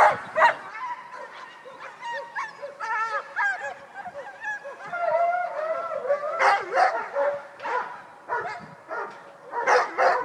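Many short animal calls that bend up and down in pitch, several at once at times, with a few sharp knocks near the start and near the end.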